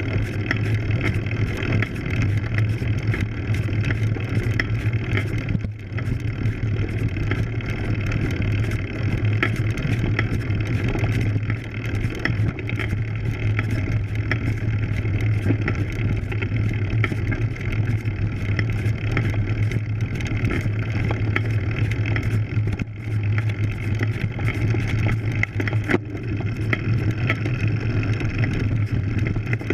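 Road bike rolling slowly over a dirt road, heard through a frame-mounted action camera: a steady low rumble and hiss of tyres on the dirt, with many small rattling clicks from the bike.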